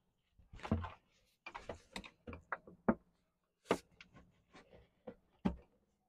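Plastic clutch-cooling duct being pushed and twisted by hand onto the clutch cover inlet: a string of irregular light knocks, clicks and scrapes of hard plastic.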